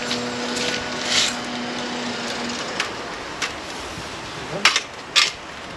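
Concrete trench blocks and a levelling staff being handled: a few sharp knocks and taps, the two loudest about half a second apart near the end. A steady low tone runs through the first two seconds or so.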